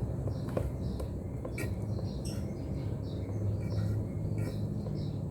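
Small birds chirping in short, high, scattered notes over a steady low hum.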